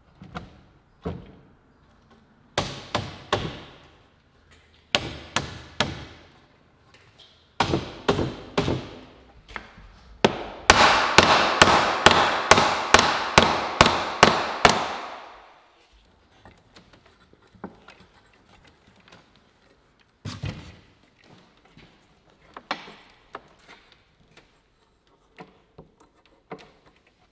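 Repeated blows knocking a solid pine door stile down onto the glued rail tenons. They come in groups, with a fast run of about three blows a second near the middle, then a few single knocks as the joint closes.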